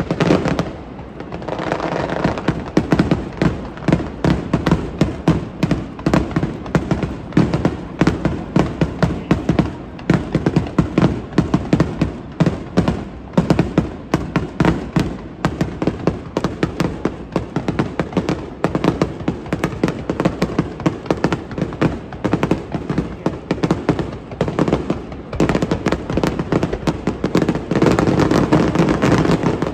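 Fireworks display going off in a continuous barrage of bursts and crackles, several per second, with no let-up.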